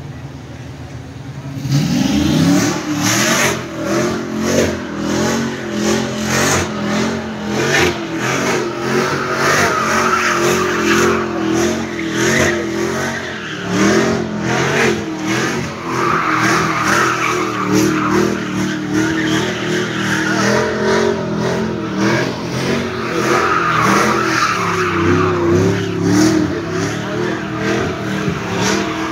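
A car's engine revving hard while its rear tyres spin and squeal, throwing up tyre smoke; it starts about two seconds in and keeps on, the revs rising and falling.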